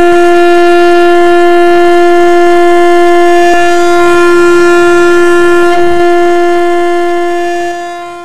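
A train horn sounding one long, steady note that fades away near the end.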